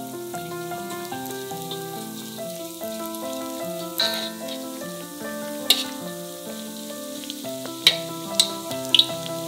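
Beignet dough squares frying in 180°C oil in a steel wok, a steady sizzle. Metal tongs click against the wok about four seconds in, once near the middle and three times near the end. Background music plays throughout.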